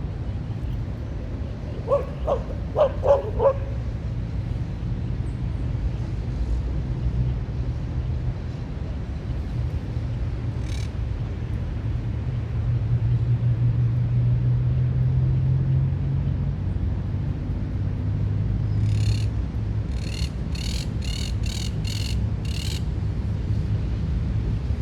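Park ambience under a steady low rumble of city traffic that swells near the middle. A dog barks about five times in quick succession about two seconds in. Near the end a bird gives a quick run of sharp, high calls.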